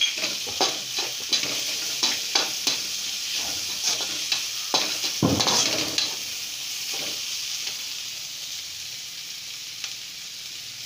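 Chopped onions and green capsicum sizzling in oil in a metal kadai, stirred with a perforated metal ladle that scrapes and taps against the pan. The strokes come about every half second for some six seconds, then the frying sizzles on alone, a little quieter.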